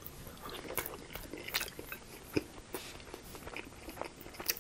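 Close-miked chewing of a mouthful of rotisserie chicken dipped in cheese sauce: quiet, irregular mouth clicks and smacks.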